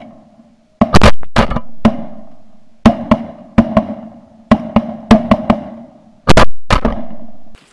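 A volley of shotgun fire from several hunters: about fifteen sharp blasts in quick, irregular succession, some in close pairs, each ringing on briefly.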